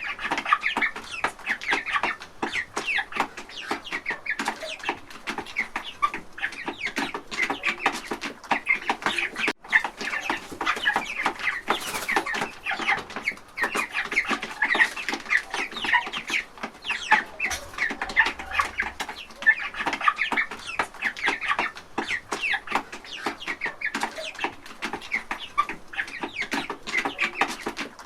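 A flock of chickens clucking, with many short calls overlapping in a constant, busy chatter.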